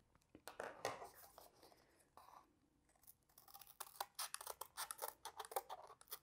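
Scissors cutting through cardboard in a quick run of short snips from about three seconds in, after a few faint handling clicks and rustles in the first second.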